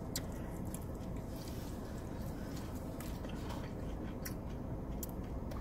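A person chewing a mouthful of noodles, with a few faint clicks, over a steady low hum.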